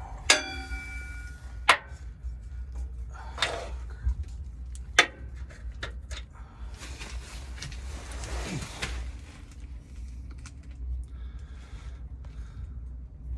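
Metal clinks and knocks from working under a pickup truck: a sharp clink right at the start that rings briefly, then several more sharp clicks and knocks over the next few seconds. Rustling follows around the middle, over a steady low rumble.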